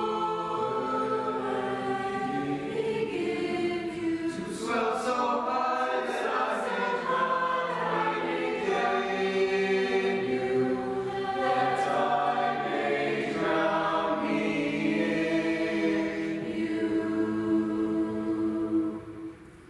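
Mixed-voice madrigal choir singing in parts, closing on a long held chord that stops shortly before the end, with the church's echo ringing briefly after it.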